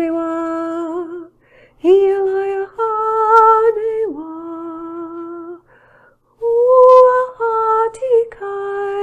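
A woman's voice singing a string of long held wordless notes, each about a second long, stepping up and down in pitch with short breaks between them: light language toning.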